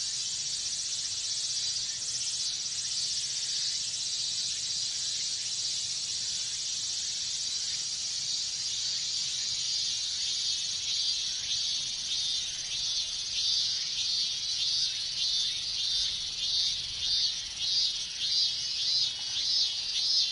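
Cicada chorus: a steady, high-pitched shrill drone. From about halfway through, a minmin cicada's pulsing call comes in, about two pulses a second, growing louder.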